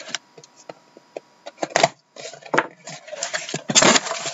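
Boxed trading-card packs being handled and moved about: a run of light knocks, taps and rustles, with a louder scrape-like clatter a little before the end.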